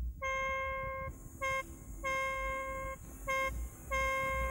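Opening of a rock song: a buzzy, single-pitched electronic keyboard tone beeps in a repeating pattern of a long note of about a second followed by a short blip, over a low drum pulse. About a second in, lower bass notes and a high hiss join.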